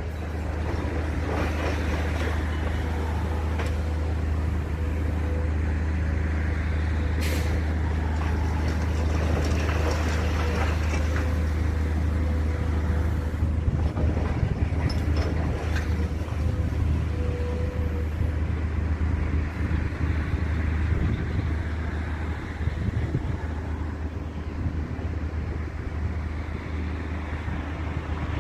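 A large engine running steadily, with a constant low drone and a faint steady tone above it.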